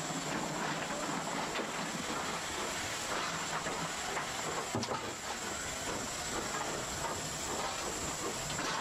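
Steady hiss of steam in the cab of LNER A4 Pacific steam locomotive 60007, with a single sharp knock about five seconds in.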